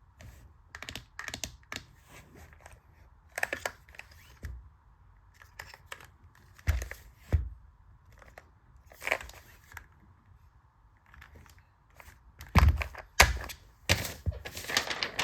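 Keychron K2 Pro mechanical keyboard being typed on in irregular bursts of keystrokes. A few heavier, deeper key strikes come about seven seconds in and again near the end.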